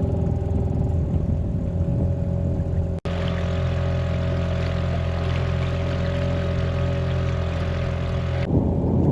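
Small boat outboard motor running at a steady speed. The sound breaks off for an instant about 3 s in, then resumes, and near the end gives way to a rushing noise of wind or water.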